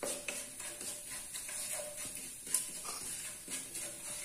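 Wooden spatula stirring and scraping whole spices and asafoetida in hot oil in a nonstick frying pan, with a run of quick clicks and knocks against the pan and a few short squeaks.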